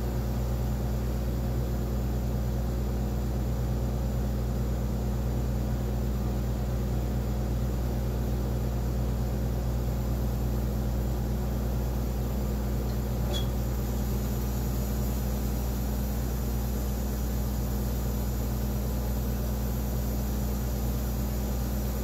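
Siemens Dimension EXL 200 chemistry analyzer humming steadily in standby, a low machine hum with a faint click about halfway through.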